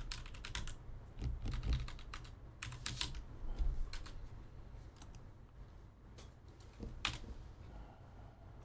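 Typing on a computer keyboard: quick runs of keystrokes for the first few seconds, then a few scattered keys, with one sharper key press about seven seconds in.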